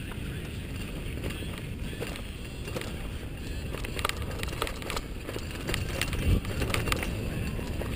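Mountain bike rolling fast down a dirt and rocky singletrack, heard through a camera mounted on the bike or rider: steady rumble of tyres and wind, with frequent clicks and rattles from the bike and a hard jolt a little after six seconds in.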